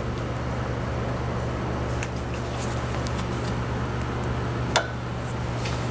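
Steady low hum with a few light metallic clicks of hand tools on a transmission cooler line and its hose clamps, and one sharper click near the end.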